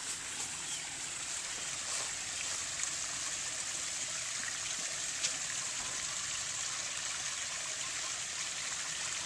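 Steady running and trickling of water from a backyard swimming pool's spa spillover: a continuous, even rush with no change in level.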